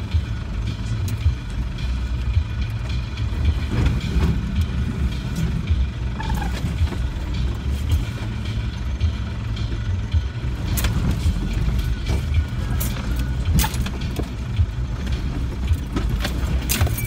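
Land Rover's diesel engine running at low speed, heard from inside the cab as it crawls over a rough, rocky track, with knocks and rattles from the vehicle and scattered sharp clicks, a cluster of them in the second half.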